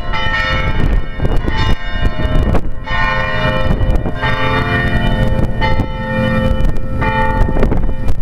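Church bells ringing: several bells of different pitch struck one after another, about one to two strikes a second, their rings overlapping, over a steady low rumble.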